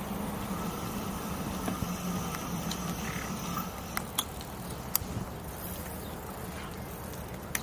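E-bike riding on pavement: steady rolling and wind noise with a low hum that fades about three and a half seconds in, followed by a few sharp clicks and knocks.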